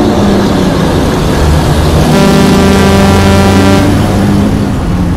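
Car driving fast, with loud, steady engine and road noise. A long, deep horn blast starts about two seconds in and lasts nearly two seconds.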